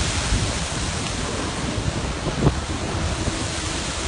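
Surf churning where a lava stream pours into the sea, with wind buffeting the microphone: a steady rushing noise with low thumps, a sharper one about two and a half seconds in.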